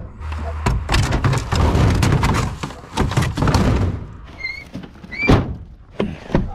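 Blue plastic pallets knocking, sliding and thumping as they are shoved into a pickup bed against an IBC tote's steel cage, with a few short squeaks just past the middle and one sharp knock about five seconds in.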